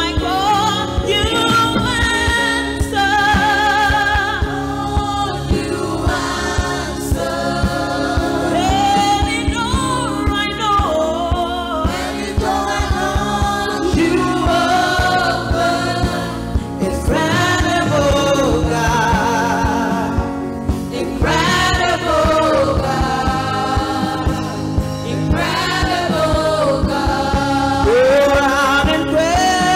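A church worship team of several singers with handheld microphones sings a gospel worship song, backed by a band with electric guitar and a steady beat.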